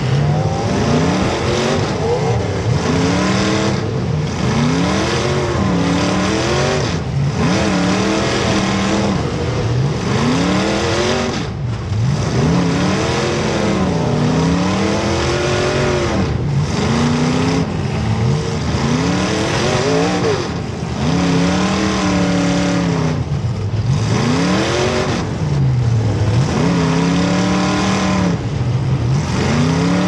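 Several demolition derby cars' engines revving hard and dropping back over and over, their pitch sweeping up and down every second or two over the steady drone of other engines running.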